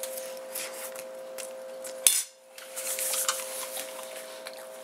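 A metal fork clinking and scraping on a plate, with a sharp clink about two seconds in, over a faint steady hum.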